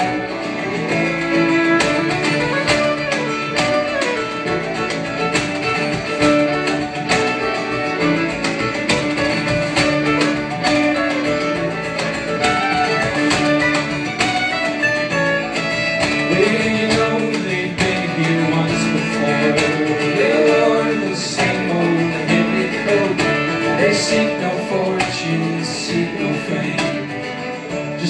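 Live acoustic string band playing a folk-bluegrass song: fiddle, strummed acoustic guitar and upright bass, with plucked string notes throughout.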